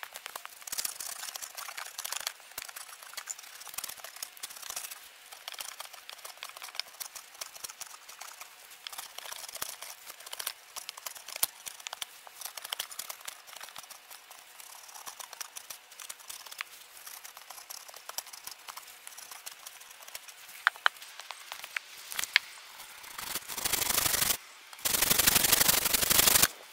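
A hatchet carving a wooden staff head on a chopping block: many small crisp cuts and shaving scrapes of the blade in the wood, irregular and quick. Near the end, a handsaw cuts into the wood in two long strokes.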